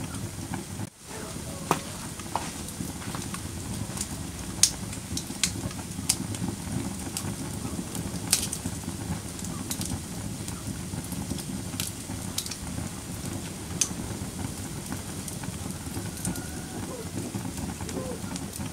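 Wood fire burning in a fireplace: a steady low rush of flames with scattered sharp crackles and pops. The sound cuts out for a moment about a second in.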